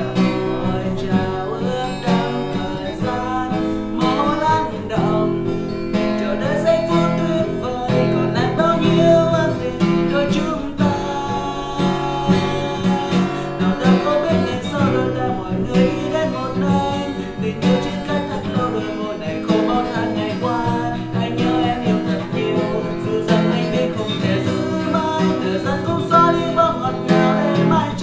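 Acoustic guitar strummed steadily with a man singing along.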